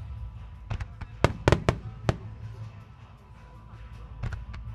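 Fireworks shells bursting: a quick volley of sharp bangs about a second in, then two more near the end, with music playing underneath.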